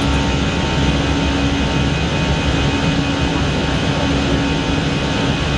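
Airliner cockpit noise in flight: a steady roar of engines and airflow with a low, even hum running through it.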